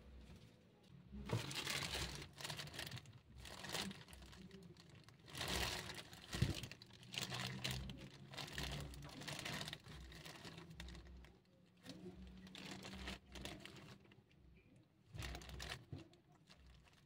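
Clear plastic bag worn over a hand crinkling and rustling in irregular bursts as the hand moves.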